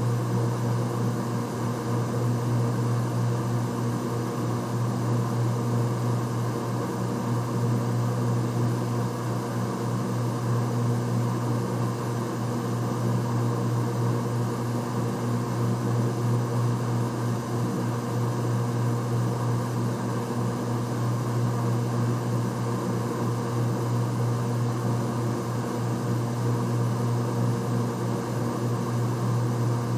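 A steady low machine hum with an even drone and no change in pitch or level.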